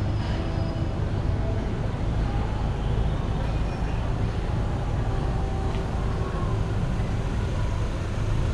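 Street traffic: a motor vehicle's engine running with a steady low rumble, with a faint murmur of street sounds over it.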